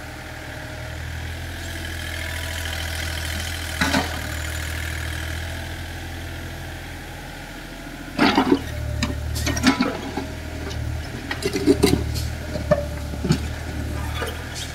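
Mini excavator's engine running at a steady drone that drops back briefly past the middle. From about 8 s on, a run of sharp clanks and knocks as the bucket digs into soil and broken rubble, with a single knock at about 4 s.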